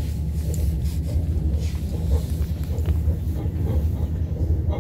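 Steady low rumble of an ES2G Lastochka electric multiple-unit train running at speed, heard inside the passenger car, with a few faint clicks from the running gear.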